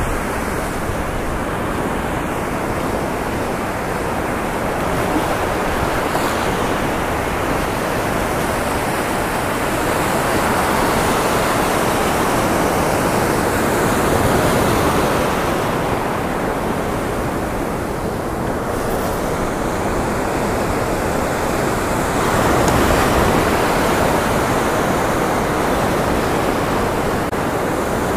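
Ocean surf breaking and washing up a sandy beach: a steady rush that swells and eases, with wind buffeting the microphone.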